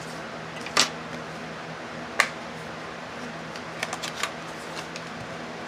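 Scattered sharp clicks and snips from scissors cutting open gel polish packaging and the packets being handled: one about a second in, another about two seconds in, then a quick cluster around four seconds. A steady low hum runs underneath.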